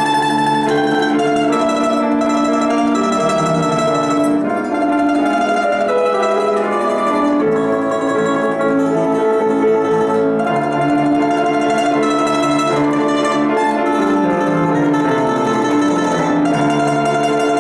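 Domra playing a melody of sustained notes, with piano accompaniment.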